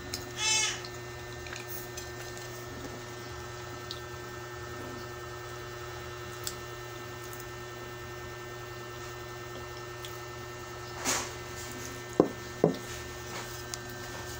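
Eating and dish-handling sounds over a steady hum: a short squeaky sound about half a second in, a brief rustle about eleven seconds in, and two sharp clinks against a plate just after.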